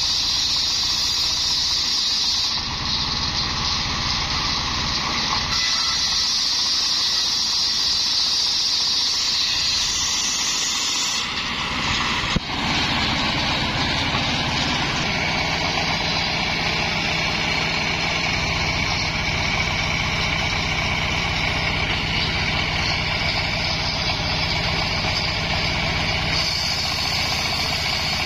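Homemade engine-driven circular sawbench ripping coconut palm wood, the blade whining high while it cuts. A sharp knock comes about twelve seconds in. After that the blade spins free with the engine running steadily, and a new cut into a coconut log starts near the end.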